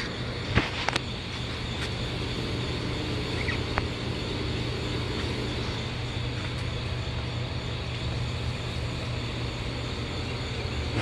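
Automatic battery charger humming steadily while charging a floor scrubber's deep-cycle battery pack, with a couple of sharp clicks about a second in.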